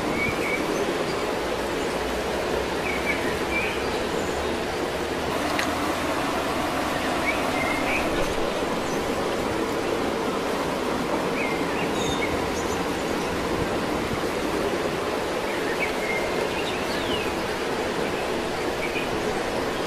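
Steady rushing of running water, with short bird chirps every couple of seconds.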